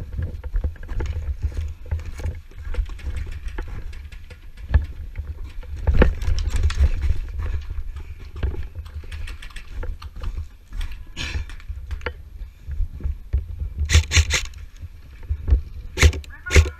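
Low rumble of movement and handling noise on a helmet-mounted camera, with scattered sharp clicks; a quick run of clicks comes about fourteen seconds in and again near the end.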